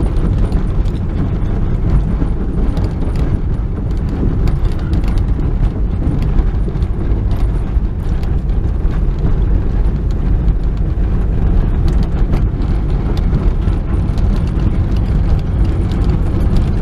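Inside a car's cabin: tyres rolling over a gravel road, stones crackling and ticking under the car, over the steady low drone of a Toyota 7A-FE four-cylinder held in second gear, engine-braking downhill.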